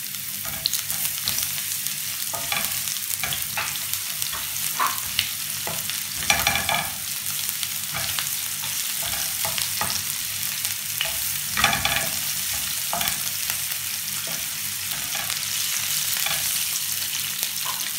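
Garlic and sliced red onion frying in oil in a frying pan, a steady high sizzle, with a wooden spatula scraping and knocking against the pan at irregular moments as they are stirred.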